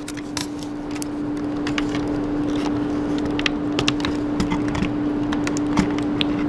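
Scattered light clicks and taps of the laptop's plastic touchpad part being fitted back into place, over a steady background hum and noise.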